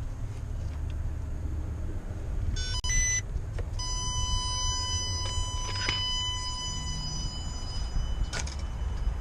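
Electronic beeps, then a steady high-pitched tone held for about five seconds, over a low steady hum.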